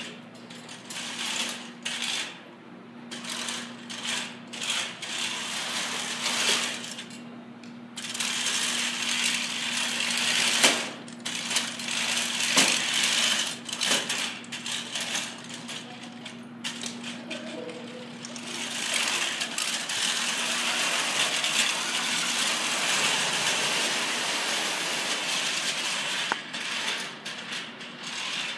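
Small robot's electric drive motors and gearboxes running in starts and stops, a whirring, clattering mechanical noise as it drives over carpet, with a few sharp knocks near the middle and a longer continuous run in the second half.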